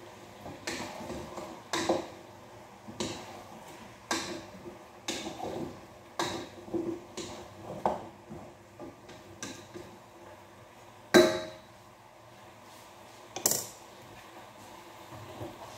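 Cookware clatter: a spoon knocking and scraping in a metal pot roughly once a second as the food is stirred, some strokes ringing briefly, with two louder clanks about eleven and thirteen seconds in.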